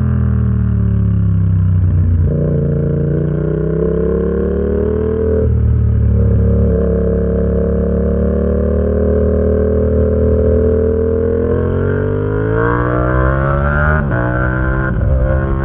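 Yamaha XSR700's 689 cc parallel-twin engine through an SC Project exhaust while riding: revs fall as it slows, jumping up twice on downshifts, then hold steady. Near the end it revs up and shifts up, the revs dropping in quick steps.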